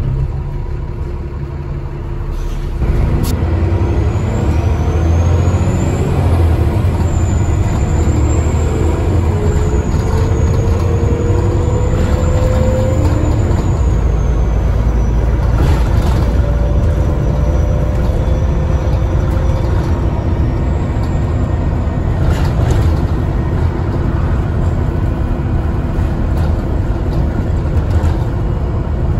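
Alexander ALX400 double-decker bus's diesel engine heard from inside the cabin, its rumble stepping up sharply about three seconds in as the bus accelerates under load. A high turbo whistle rises, peaks, then slowly fades over about ten seconds, alongside a fainter rising whine as the bus gathers speed.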